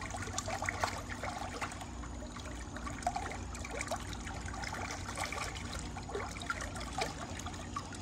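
Pool water trickling and splashing where the return jet flows into the pool, with a faint low steady hum underneath.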